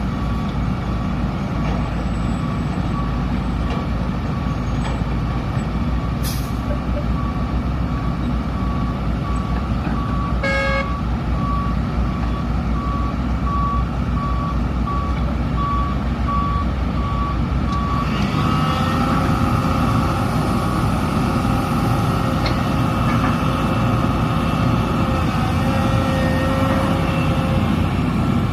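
Heavy diesel machinery running, with a dump truck's reversing alarm beeping steadily until it stops about two-thirds in. A short hiss comes about six seconds in and a brief pitched tone near the middle. After the beeping ends the engine note grows louder, with steady whining tones over it.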